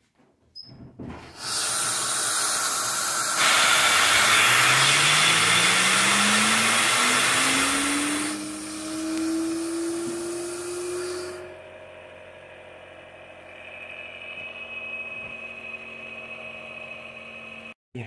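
Dual-stage Tesla turbine run on compressed air: a loud hiss of air, with the rotor's whine rising steadily in pitch as it spins up. About eleven seconds in the hiss drops away sharply, leaving a quieter steady whine.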